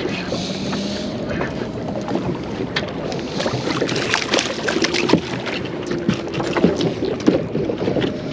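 Small boat on the water while a hooked fish is played and brought in: a steady wash of water and wind on the microphone, with many sharp clicks and knocks, busiest in the middle few seconds.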